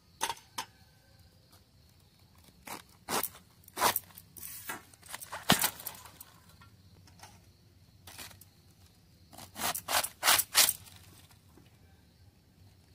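Crisp cabbage leaves being cut on a boti blade and pulled apart by hand: separate short crunchy rasps at irregular intervals, with three in quick succession about ten seconds in.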